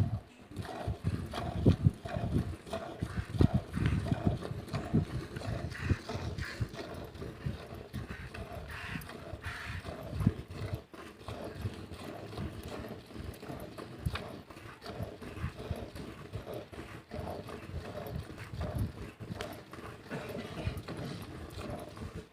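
A cow being milked by hand: milk squirting into a pail in a steady rhythm of about two squirts a second, with some low knocks in the first few seconds.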